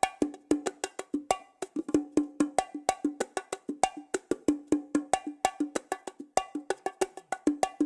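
Fisher-Price toy bongo drums playing a fast, continuous pattern of sharp hits, about eight strokes a second, on a lower and a higher drum. It is a cartoon sound effect.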